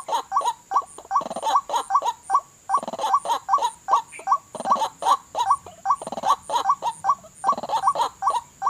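White-breasted waterhens calling: harsh, repeated "wak" notes in quick succession, about three to four a second, broken by short pauses.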